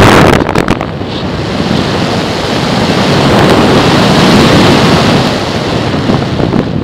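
Wind rushing over the microphone of a camera mounted on a radio-controlled plane in flight: loud buffeting in the first second, then a steady rush of air that eases near the end.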